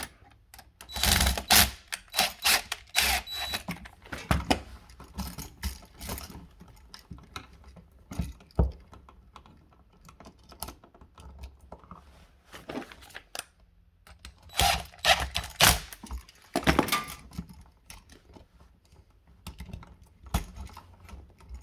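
Small clicks, taps and rattles of hand tools and an electrical receptacle being handled during wiring work, in two busy spells, one near the start and one about two thirds of the way through, with scattered taps between.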